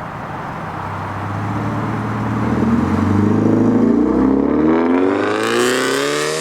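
Subaru BRZ's 2.0-litre flat-four, running through a catless front pipe, accelerating: the engine note climbs steadily in pitch and grows louder over the last few seconds.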